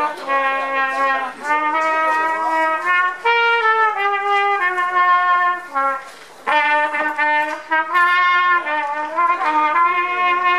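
Pocket trumpet played solo: a melody of held notes stepping up and down, with a short break about six seconds in.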